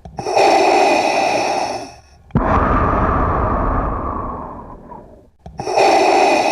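Darth Vader's mechanical respirator breathing, the Star Wars sound effect made by breathing through a scuba regulator. Slow, even breaths in a regular cycle: a short, steady breath with a hissing, whistling edge, then a longer, hollower breath that fades away. The short breath begins again near the end.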